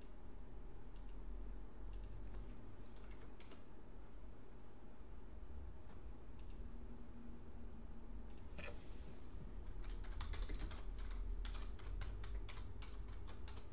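Typing on a computer keyboard: a few scattered key clicks, then a quick run of keystrokes from about ten seconds in, over a low steady hum.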